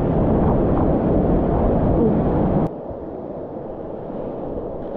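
Loud, steady rush of whitewater rapids around a kayak, cutting suddenly to a quieter rush of moving water about two and a half seconds in.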